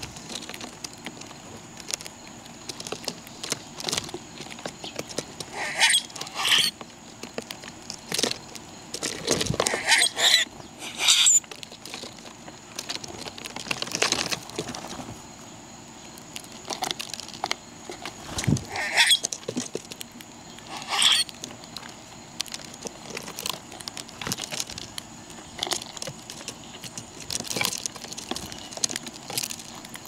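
Small birds feeding: frequent light taps and pecks, with short squeaky chirps a few times.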